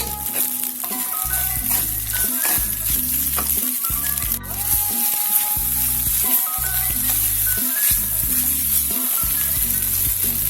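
Instant noodles frying in a pan, a steady sizzle, with background music that has a repeating bass line playing over it.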